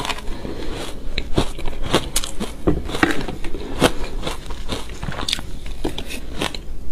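Shaved ice with matcha being bitten and chewed up close, a dense run of irregular sharp crunches and crackles. A metal spoon scoops ice from the bowl between bites.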